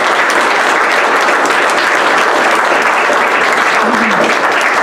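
Audience applauding: many people clapping, steady throughout.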